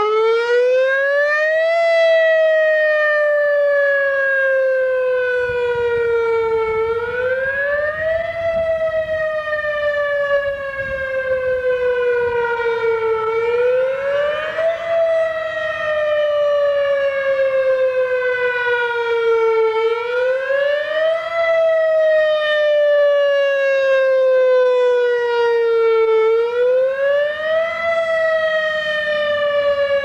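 Whelen WPS-3016 electronic tornado siren sounding its wail tone. The pitch climbs quickly, then slides slowly down, about every six and a half seconds, five times over.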